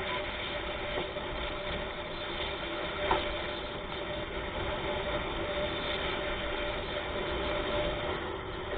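Steady running noise of a vehicle travelling on the road, with a faint constant tone over it and one brief click about three seconds in.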